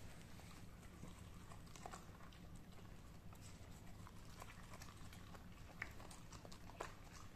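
White Swiss Shepherd puppy faintly chewing and picking at lettuce on a tiled floor, with scattered small clicks and crunches, the sharpest two near the end. A faint low steady hum lies underneath.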